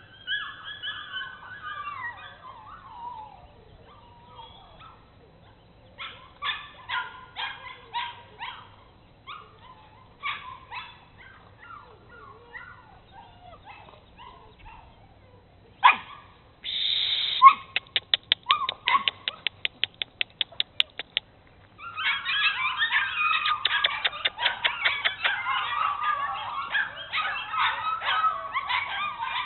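Bernese mountain dog puppies whimpering and yipping in short high cries, off and on at first. Just past the middle comes a short loud burst of noise and then a fast run of clicks, and over the last third the high cries come thick and without pause.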